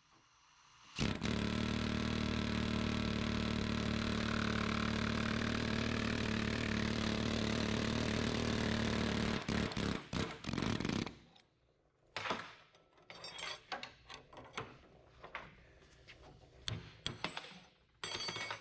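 Pneumatic air chisel with a pointed bit hammering rapidly and steadily on a cut-off bolt stub seized in a leaf spring's rubber bushing sleeve. It runs for about ten seconds and then stops suddenly, having driven the stub out. Scattered metal knocks and clanks follow as the tool and spring are handled.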